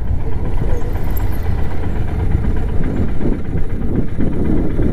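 Motorcycle engine running steadily while riding, with wind rumbling on the microphone.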